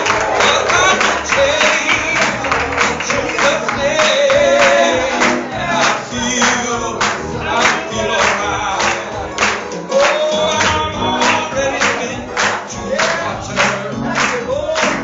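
Gospel singing by a congregation or choir over a steady beat of sharp strikes, such as clapping or drums.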